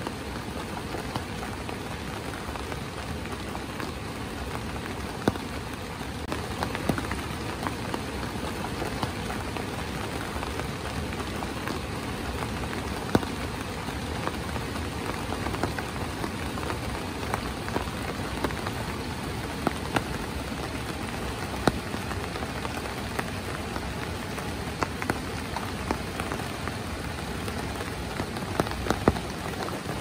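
Steady rain falling on a camp awning overhead, with scattered sharper ticks of single drops.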